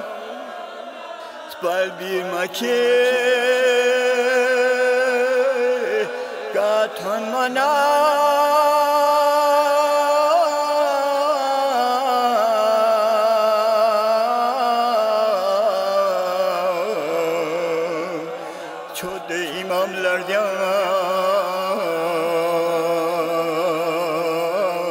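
Slow chanted marsiya, a mournful religious elegy, sung in long held notes that waver and bend, with short dips in loudness near the start and about eighteen seconds in.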